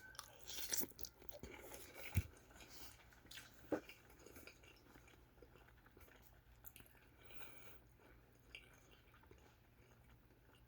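A person chewing a mouthful of vegetable lo mein, with quiet wet mouth sounds and clicks. These are busiest in the first few seconds, with two sharp knocks about two and almost four seconds in, then fade to faint chewing.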